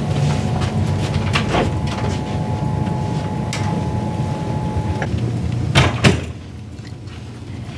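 A heavy room door with a lever handle being opened and shut behind them: a few light clicks of the handle, then two sharp knocks as it closes and latches about six seconds in. A steady low hum stops as it shuts.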